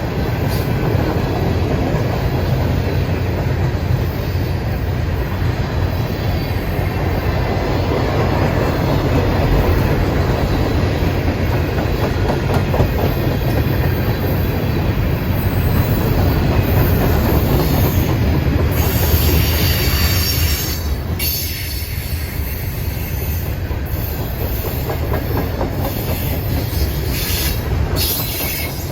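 Manifest freight train rolling past at close range: a steady heavy rumble of railcar wheels on rail. About two-thirds of the way through, high-pitched wheel screeching comes in and then comes and goes.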